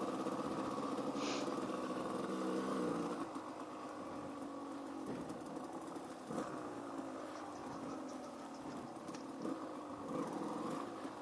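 Dirt bike engine running on the trail, steady at first, then easing off about three seconds in and carrying on at lower throttle, with a few brief knocks.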